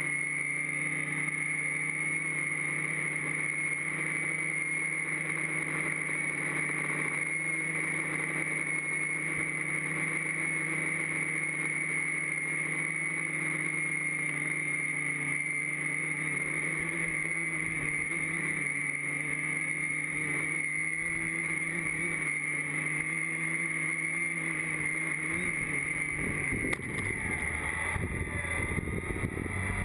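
Quadcopter's brushless motors and propellers buzzing steadily in flight, heard through the onboard camera. Near the end there is a click as it touches down, and the motors spin down with falling pitch.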